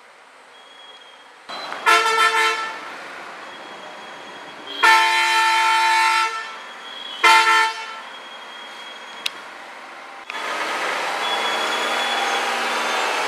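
Heavy lorry's horn sounding three times: a short broken toot, a longer blast of about a second, then a short one, over the low running of its diesel engine. Near the end the lorry's engine grows much louder as the truck comes close.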